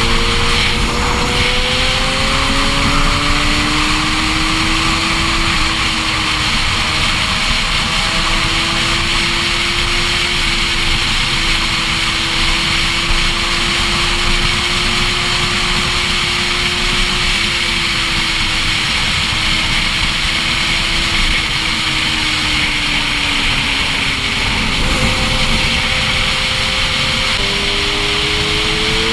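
Motorcycle engine running at a steady highway cruise under heavy wind rush on the microphone, its pitch climbing near the end as it accelerates.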